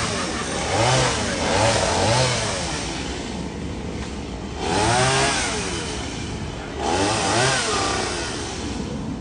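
A chainsaw revving in repeated bursts as it cuts through a fallen tree. Each burst lasts about a second, rising and then falling in pitch, with the saw running lower between bursts.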